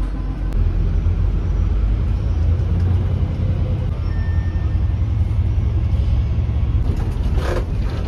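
Open-top double-decker tour bus on the move in city traffic: a steady low rumble from the bus and the road. A brief, sharper sound comes near the end.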